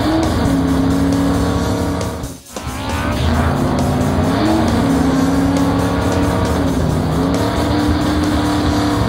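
Cartoon race car engine sound effects over background music, with a brief drop-out about two and a half seconds in.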